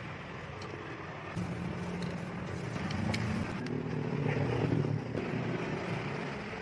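Low rumble of an engine running nearby, swelling to its loudest about four and a half seconds in and then easing off.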